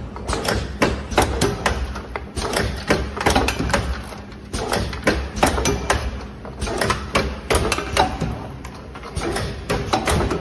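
Automatic rotary dropper-bottle filling and capping machine running, with frequent sharp clacks and knocks over a steady low hum.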